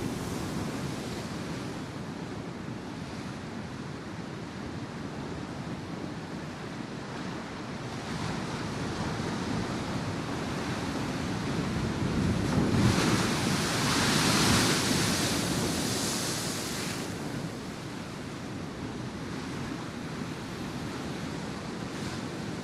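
Ocean surf washing on a shore, a steady rushing hiss; about halfway through one wave builds and breaks louder and hissier for a few seconds before falling back.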